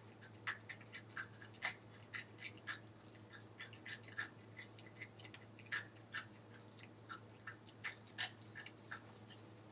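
Crunching of crispy fry-shaped potato snacks being chewed: an irregular run of short, sharp crunches, about three a second.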